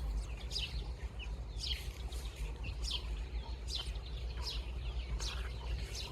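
Baby chicks peeping: many short, high, falling peeps overlapping at an irregular pace, over a steady low hum.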